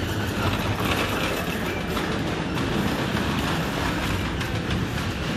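Shopping trolley rolling along a supermarket aisle floor, a steady rumble with its wheels and wire cage rattling.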